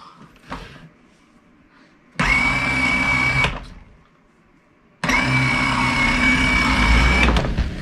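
Battery-powered ride-on toy motorcycle's electric motor and gears whirring with a high steady whine, in two runs as the foot button is pressed: a short one of about a second, then a longer one of about two seconds, each starting and stopping abruptly.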